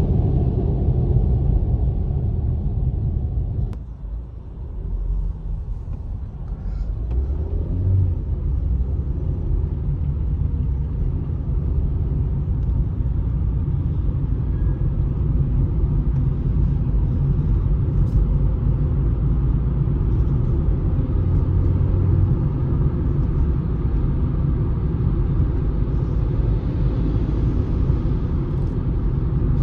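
Low road rumble heard inside a moving car's cabin. It drops briefly about four seconds in, then builds back up and holds steady.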